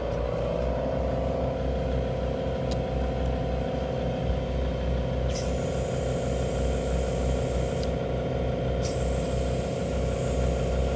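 ARB twin 12-volt air compressor running steadily with a constant whine over a low hum, filling its 4-litre air tank; its pitch rises slightly in the first second, then holds.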